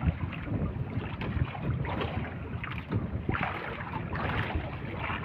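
Wind buffeting the microphone over moving sea water, an uneven rushing noise with a louder gust about three and a half seconds in.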